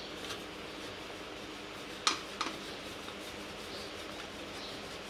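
Hands pressing a floured ball of pizza dough on a wooden board: a sharp knock about two seconds in and a lighter one just after, over a steady background hum.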